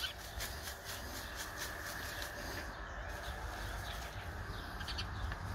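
Outdoor garden ambience: a faint, rapid ticking, about five a second, that fades out about halfway through, over a steady low rumble.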